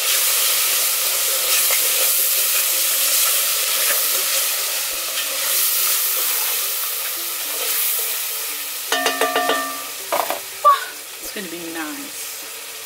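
Chopped tomatoes frying in an aluminium saucepan, sizzling steadily, with a wooden spoon stirring and scraping the pot. The sizzle eases after about eight seconds.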